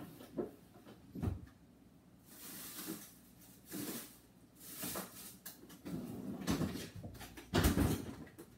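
Off-camera household handling noises: a string of knocks and rustles, like things being moved about or cupboards and drawers being worked, with the loudest a heavy knock near the end.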